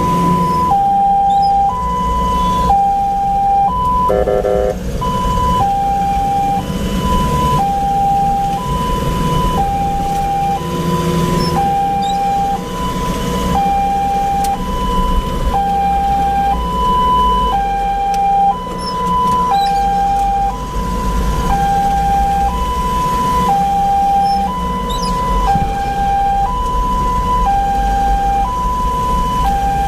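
Ambulance's two-tone hi-lo siren sounding steadily, switching between a higher and a lower note about once a second, over engine and road noise from the moving vehicle. A short horn blast about four seconds in.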